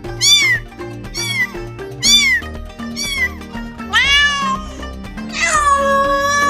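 Domestic cat meowing over and over: four short meows that rise and fall, each well under a second, then a longer one, then a long drawn-out meow near the end. Background music runs underneath.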